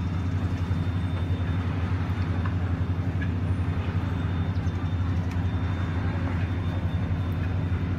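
Steady low mechanical hum with a few faint clicks.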